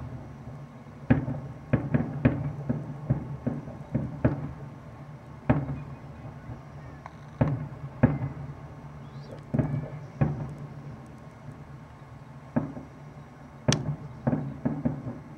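Aerial firework shells bursting: sharp bangs in an irregular run, several a second in the first few seconds, then sparser. One bang near the end is louder than the rest.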